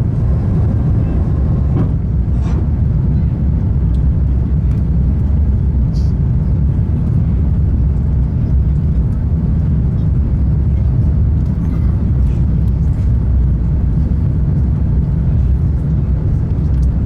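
Steady low rumble of an Airbus A350-1000's Rolls-Royce Trent XWB engines and airflow, heard inside the passenger cabin during the climb after takeoff.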